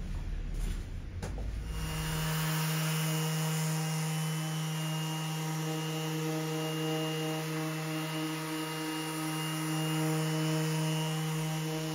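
A Makita 18V cordless random orbital sander starts about two seconds in. It then runs with a steady hum and the hiss of its pad sanding a wooden tabletop. Before it starts there is a low rumble and a couple of knocks.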